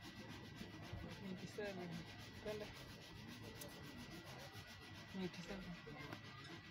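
Faint rubbing and handling noise, close to the microphone.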